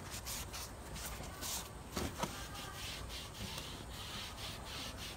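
Cloth rubbing along a car sunroof's rubber seal in irregular short wiping strokes, cleaning it with toothpaste to remove the grit that makes the seal creak.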